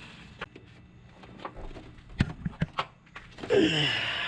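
Scattered small clicks and knocks of a wrench tightening an O2 sensor in short increments, then near the end a loud groan falling in pitch, from a person straining.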